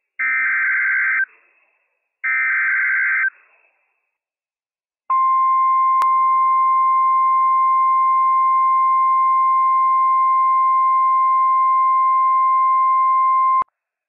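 NOAA Weather Radio Emergency Alert System activation. First come two short buzzy SAME header data bursts, each about a second long and two seconds apart. After a pause of about two seconds the steady 1050 Hz warning alarm tone starts and holds for about eight and a half seconds before cutting off sharply. The sequence signals a Severe Thunderstorm Warning.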